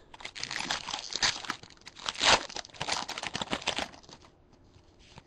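Foil wrapper of a 2011 Bowman Draft baseball card pack crinkling and tearing as it is ripped open by hand. It is loudest a little after two seconds in and dies away after about four seconds.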